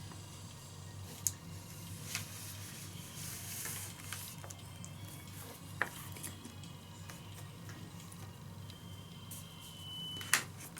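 Quiet studio room tone: a steady low hum with a few scattered small clicks and knocks, the sharpest about ten seconds in.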